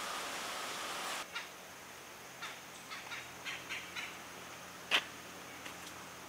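Woodland ambience: a steady hiss that drops away about a second in, then a few short bird calls and one sharp click about five seconds in.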